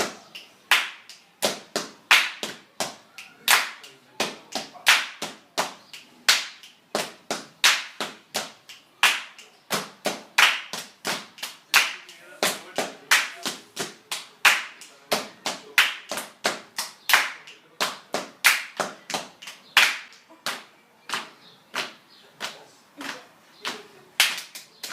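Hand claps and body slaps in body percussion, beating out a steady rhythm of about two to three sharp strikes a second.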